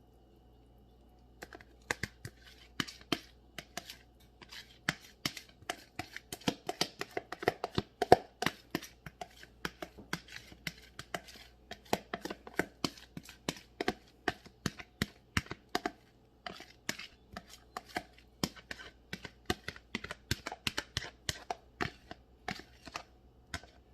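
A spoon or spatula clicks and scrapes repeatedly against a dish, about three or four knocks a second, while thick sauce is spooned and spread over a pasta, chicken and vegetable casserole. A steady low hum sits underneath.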